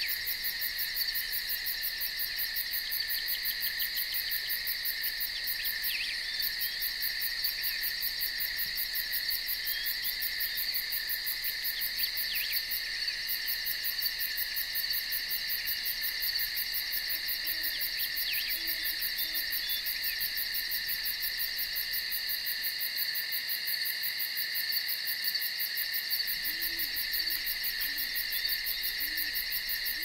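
Forest ambience: a steady, dense insect chorus with a fast, even high pulsing, with a few short bird chirps in the first half. From about halfway through, low soft hoots come in, repeating several times near the end.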